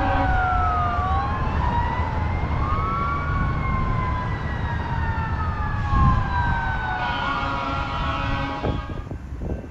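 Emergency vehicle siren wailing, two overlapping tones sweeping slowly up and down in pitch over a low rumble, fading near the end.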